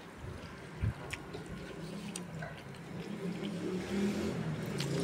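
Wet, sticky sounds of eating with the hand: fingers kneading rice and pulling up a piece of meat, with a few small clicks and a soft thump about a second in. A low hum builds in the second half.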